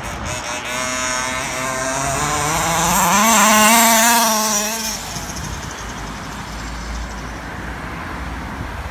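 King Motor T1000 RC buggy's two-stroke petrol engine, fitted with helical 20-tooth pinion and 51-tooth spur gears, revving up under throttle with a rising pitch. It wavers and is loudest about four seconds in, then cuts off suddenly about five seconds in, leaving a steady low hiss.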